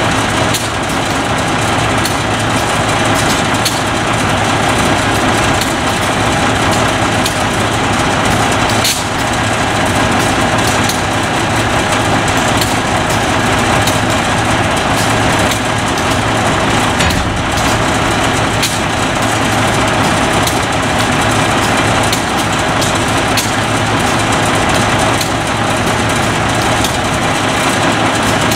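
Heavy diesel engine idling steadily, with a constant low hum, and a few short knocks along the way.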